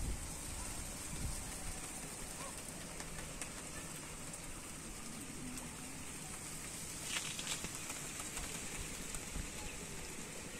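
Steady outdoor background noise beside a pond: a thin high hiss with uneven low wind rumble on the microphone, and one brief sharper noise about seven seconds in.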